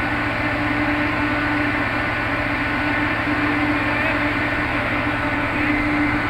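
A boat's engine running with a steady drone, a humming tone in it fading in and out.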